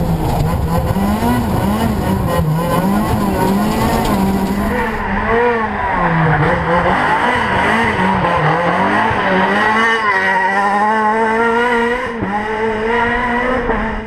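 Renault Clio R3 Maxi rally car's 2.0-litre four-cylinder engine driven hard. It is heard first from inside the cabin, with revs rising and falling repeatedly through gear changes and braking. About five seconds in it is heard from the roadside as the car rounds a hairpin and accelerates away, its note rising steadily near the end.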